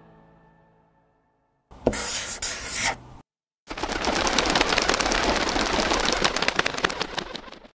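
Logo sound effect: music fades out in the first second, then a noisy whoosh lasts about a second and a half. After a short break comes a dense crackle of many rapid clicks for about four seconds, which cuts off suddenly near the end.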